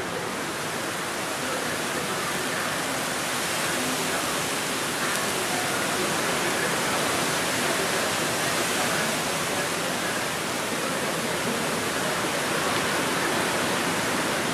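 Hurricane wind and wind-driven rain: a steady, dense hiss of rain together with wind through tree leaves, a little louder from about three seconds in.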